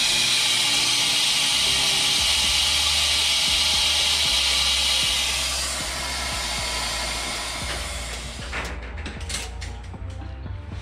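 A loud, steady hiss that holds for about five seconds and then fades, with a low hum underneath. A few sharp clicks or knocks come near the end.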